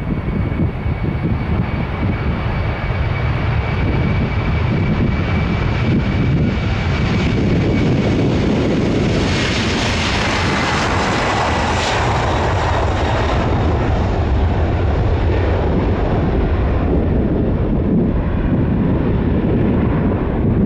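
Airliner passing, its engine noise growing strongest about halfway through, with a high whine that drops slightly in pitch as it goes by.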